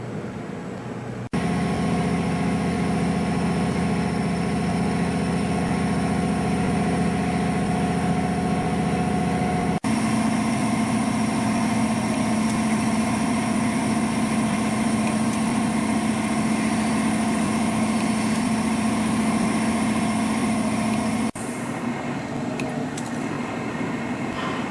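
CNC compression spring coiling machine running steadily, its motors giving a steady hum with several held tones. The sound changes abruptly about a second in and about ten seconds in, and drops quieter near the end.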